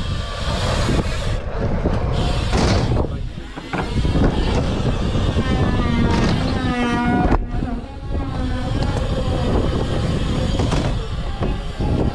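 Wind rushing over the camera microphone and the rumble of BMX tyres rolling over skatepark ramps. From about six to seven seconds in, a wavering pitched sound rises over the noise.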